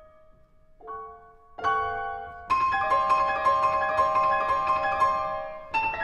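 Concert grand piano playing a birdsong-like solo passage: a held note dies away into a brief pause, then bright chords enter about a second in and quickly turn into rapid repeated high notes.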